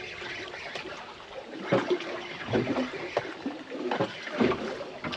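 Seawater lapping and splashing against a small boat's hull, with a few short knocks and splashes.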